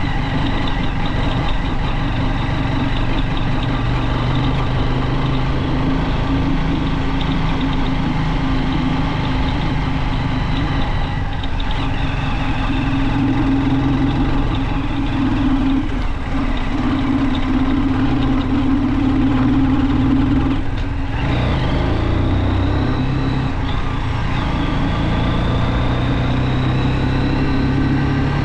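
Junak M12 motorcycle engine running under way, a steady note with a low hum. The note breaks briefly about eleven and twenty-one seconds in, and after the second break it climbs again.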